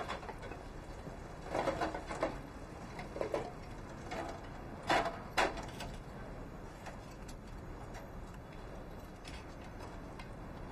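Short clanks and knocks of a bicycle being handled and parked: a few scattered rattles in the first half, then two sharp knocks about five seconds in.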